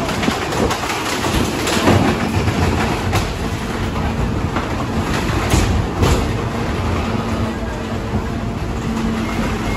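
Leach rear-loader garbage truck running with its hopper full of demolition wood, a steady engine and hydraulic drone under repeated sharp cracks and clatter as the lumber is crushed.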